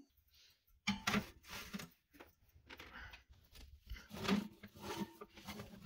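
Irregular soft clunks and scraping at an open oven: a metal baking sheet and the oven rack being handled.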